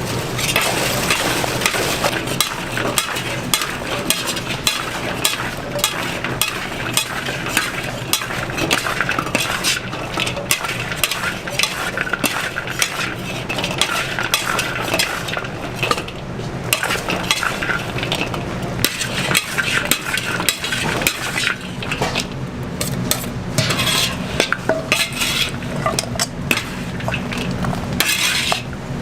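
Food being stirred and tossed in a hot pan with a metal utensil: constant scraping and clinking over a sizzle, with a steady low hum underneath.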